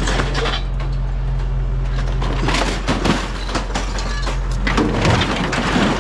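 Clattering and knocking of scrap items being shifted and pulled from a cluttered junk pile, in two busier bursts about halfway through and near the end, over a steady low hum.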